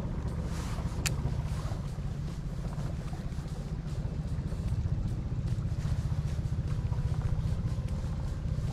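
Steady low rumble with a single sharp click about a second in, as the baitcasting reel is engaged and wound in after a cast.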